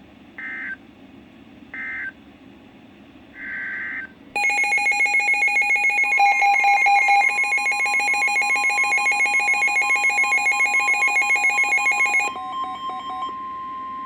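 Emergency Alert System tones on weather-radio audio. Two short screeching data bursts close out one warning, and a longer data burst opens the next. Then a loud, rapidly pulsing electronic alert beep sounds for about eight seconds, and under it the steady single-pitch weather-radio warning tone starts and carries on alone after the beeping stops.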